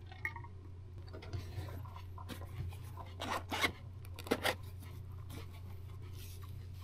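Small handling sounds from a zippered hard-shell case being opened in the hands: rubbing and a scatter of short clicks, thickest in the middle, over a steady low hum.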